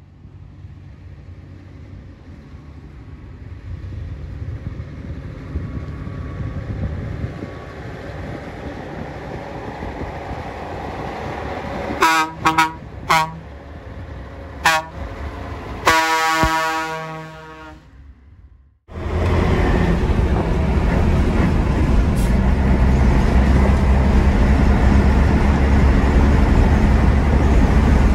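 Scania 111 S truck's 11-litre six-cylinder diesel engine growing louder as the truck approaches, then a few quick horn toots about halfway through and a longer horn blast that fades away. After a sudden break, the same engine is heard from inside the cab, running loud and steady at road speed along with road noise.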